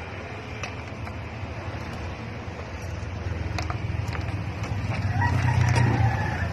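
Car engine running with a steady low hum that grows louder about halfway through. A rooster crows faintly in the background near the end.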